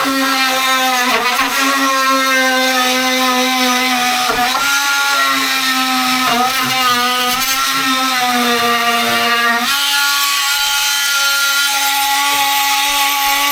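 Electric power tool running steadily with a constant whine; its pitch sags briefly a few times as the tool is loaded, then steps up slightly about ten seconds in.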